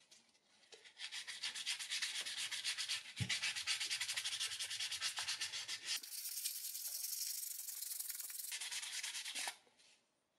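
Sandpaper rubbed by hand over a brass binocular tube: fast, even back-and-forth scratchy strokes. After the middle it turns into a smoother, brighter hiss for a couple of seconds, then the strokes return and stop about a second before the end.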